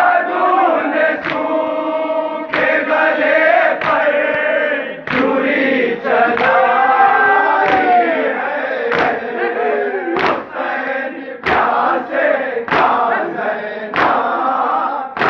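Men's voices chanting a nauha, a Shia lament, together, with the crowd's matam hand strikes on the chest landing in unison about every 1.3 seconds.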